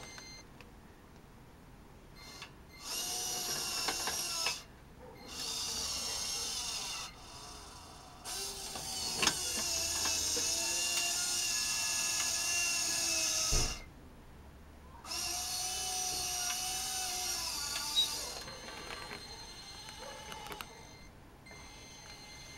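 Small electric gear motors of an RC-converted Tonka toy scraper running in four spells of a few seconds each, giving a steady high-pitched gear whine that starts and stops, with an occasional knock.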